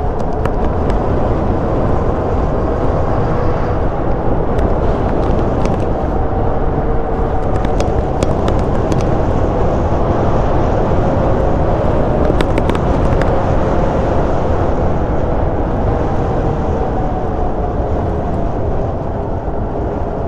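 Super73 RX electric bike riding along a paved street: steady wind and tyre-on-asphalt noise, with a drive hum whose pitch drifts slowly up and down with speed, and a few light clicks.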